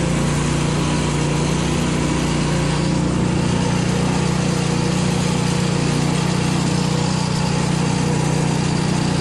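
Karakat (homemade all-terrain vehicle on wide low-pressure tyres) engine running steadily under load as it drives along.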